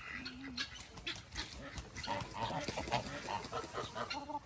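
Farm birds in the yard giving short, scattered calls, with clicks and rustling from movement on the ground.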